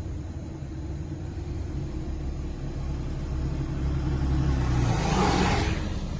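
A road vehicle running with a low rumble. About five seconds in, a rush of noise swells and fades as a vehicle passes close by.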